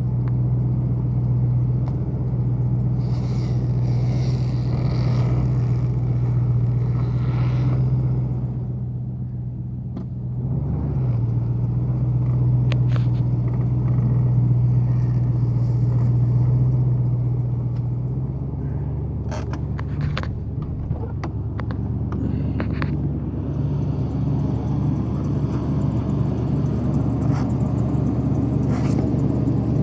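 Toyota Tundra pickup truck's engine running steadily with a low hum. Its note shifts about 18 seconds in, and a few knocks follow soon after.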